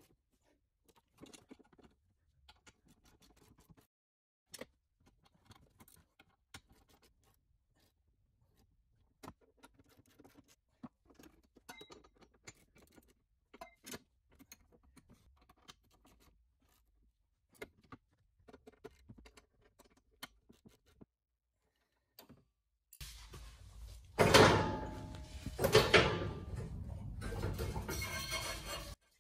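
Faint, scattered clicks and scrapes of a hand wrench on the tow bar's mounting bolts. Near the end comes a much louder stretch as the spare wheel is heaved up into its carrier under the car: a heavy thump, another about two seconds later, and tyre rubbing against the underbody.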